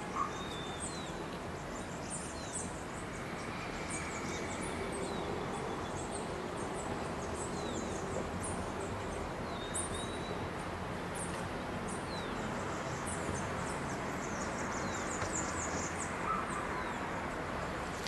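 Small birds chirping: many short, high-pitched chirps and a few brief whistles scattered throughout, over a steady outdoor background noise.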